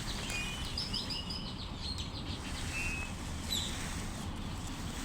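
Small birds chirping: a few short high trills and held notes, over a steady low background rumble.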